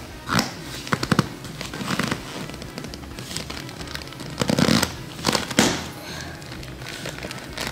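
Plastic buckles of Fox Comp 5 motocross boots being latched and snapped shut by hand: a scattered series of sharp clicks and clacks, the strongest a little past halfway.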